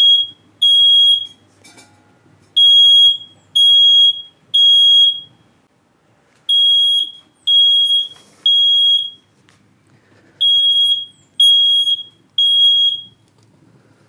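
Kidde smoke alarm going off in the temporal-three pattern: three loud, high-pitched beeps about a second apart, a pause of about a second and a half, then three more, repeating. It has detected smoke from burning cardboard.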